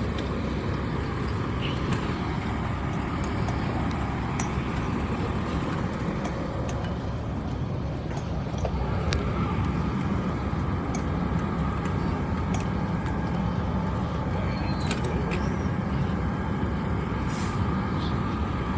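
Fire engine's diesel engine running steadily, with a few sharp clicks and knocks scattered through it.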